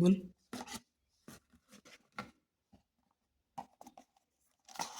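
Cardboard packaging and paper inserts being handled: short, scattered rustles and taps, with a louder rustle near the end.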